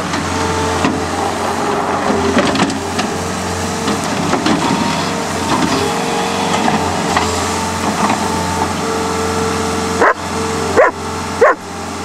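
Caterpillar skid steer's diesel engine running steadily under load as it scrapes soil with its bucket. A dog barks and whines at intervals, with the loudest barks near the end.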